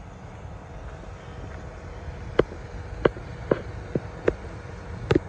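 Footsteps on asphalt, about two a second from roughly two seconds in, over a steady low rumble.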